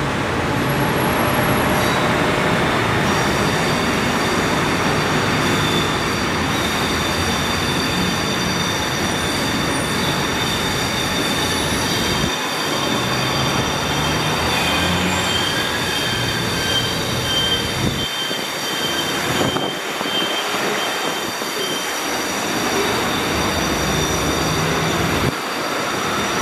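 New Taipei Circular Line metro train pulling out and running along a curved elevated track: a steady rumble of wheels on rail with a steady high-pitched wheel squeal from the curve. The low rumble thins about halfway through as the train moves off.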